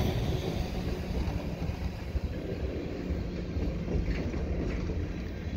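Freight train cars, boxcars and tank cars, rolling across a railway overpass: a steady low rumble with a few faint clacks from the wheels about halfway through.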